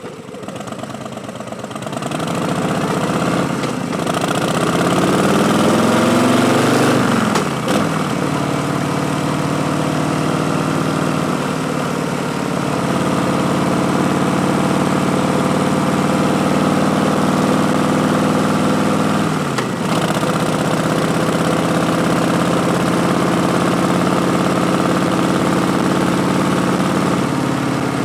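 Harley-Davidson Street Bob's V-twin through Vance & Hines Twin Slash slip-on mufflers under way: it builds over the first couple of seconds, rises in pitch as the bike accelerates, drops sharply at an upshift about seven seconds in, then runs steadily at cruising revs, with another short dip in revs just before twenty seconds.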